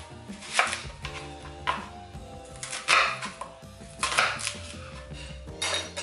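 Chef's knife slicing through a raw onion and striking the cutting board: about five crisp cuts, a second or so apart.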